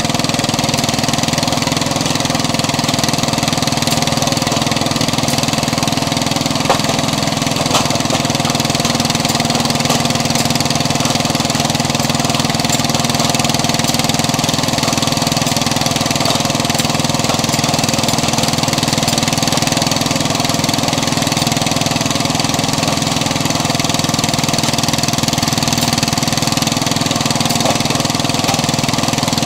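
Engine of a vertical log splitter running steadily as it drives the splitting wedge, with a couple of brief knocks about seven seconds in.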